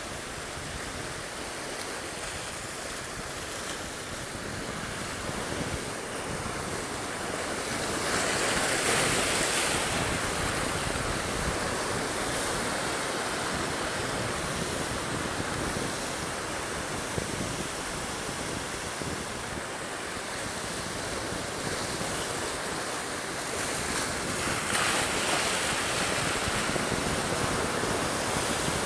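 Sea surf surging and washing over shoreline rocks, with wind on the microphone. The wash swells louder about eight seconds in and again near the end.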